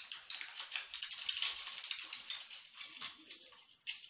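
Quick irregular clicks, taps and rattles from handling the exoskeleton's flexible bar as its top cap is pulled off to get at the fiberglass rods inside. The clicking is dense for the first few seconds and then thins out.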